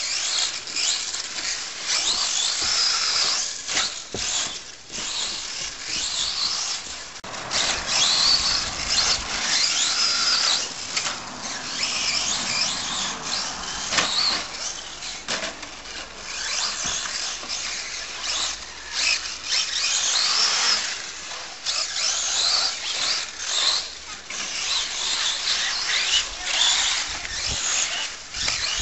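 Radio-controlled short-course trucks driving on a dirt track, their motors giving a high whine that rises and falls over and over as they accelerate and slow through the corners.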